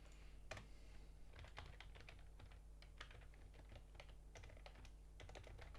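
Computer keyboard being typed on: quick, irregular runs of faint key clicks.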